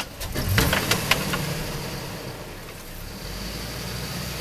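Off-road 4x4's engine pulling under throttle as it crawls over rocks, rising about half a second in and then holding steady, with a few sharp knocks in the first second or so.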